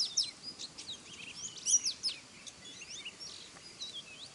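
Small songbirds giving rapid high, sweeping chirps and call notes in scattered clusters, the loudest about two seconds in, thinning out toward the end: a decoy hen and a wild hen calling as they fight.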